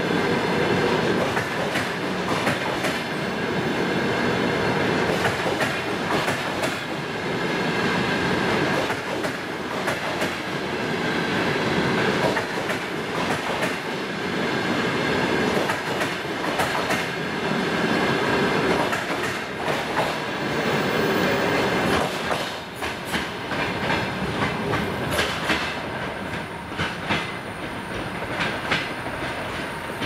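Double-deck passenger coaches rolling past as the train departs, their wheels clicking over the rail joints. About two-thirds of the way through, the rolling sound drops off and separate wheel clicks are left as the tail of the train moves away.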